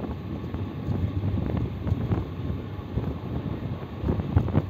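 Passenger train running at speed, heard from an open carriage window: the wheels rumble and clack over the rails, with wind buffeting the microphone.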